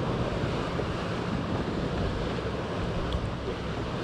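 Steady wind rushing on the microphone over choppy lake water, with small waves lapping.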